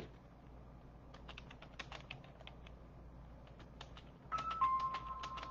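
Typing on a keyboard: scattered, irregular key clicks. Past the four-second mark a steady high tone comes in and holds to the end, louder than the clicks.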